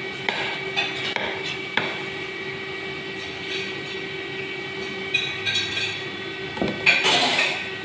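Steady drone of commercial kitchen extraction and burners, with a few sharp knocks of work at the counter in the first two seconds and a louder, hissing clatter about seven seconds in.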